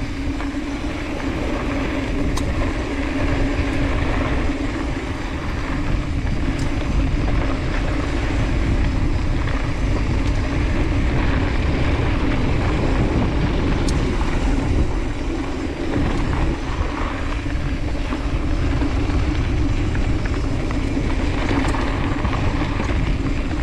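A KHS 7500 enduro mountain bike riding fast down a dirt singletrack: wind buffeting the camera microphone and the tyres rolling over dirt, with an even hum underneath and a few sharp clicks as the bike goes over rough ground.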